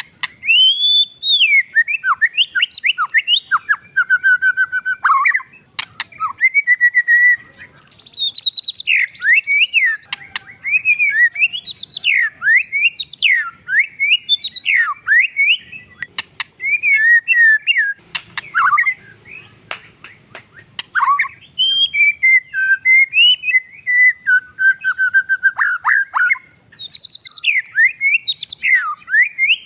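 Oriental magpie-robin (kacer) in full, vigorous song: a loud, varied run of whistled phrases sweeping up and down in pitch, broken by short pauses. A faint steady high hiss lies underneath.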